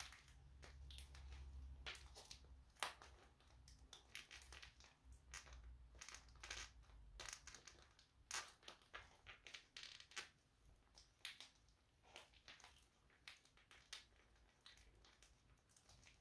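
Faint, irregular crackling and snapping as the soles of Nike Air Max Plus (Tn) sneakers crush small brittle wooden splinters against a hard floor.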